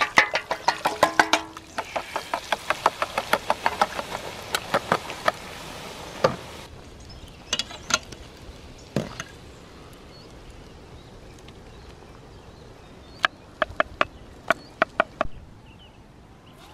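A metal fork ticking rapidly against a metal bowl and pan, about five strikes a second, as beaten egg is poured into hot fat and stirred, over a steady sizzle. The sizzle stops suddenly at about 7 s, followed by a few scattered knocks and a quick run of clicks near the end.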